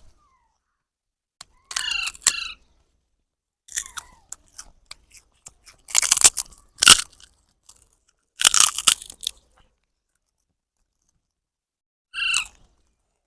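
Baby parrot giving two short, wavering calls, about two seconds in and again near the end, with bursts of crunching in between, loudest around the middle.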